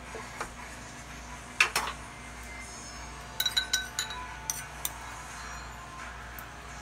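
Metal kitchen utensils clinking against a wire oven rack and pan: a sharp knock about a second and a half in, then a quick run of ringing clinks a little later.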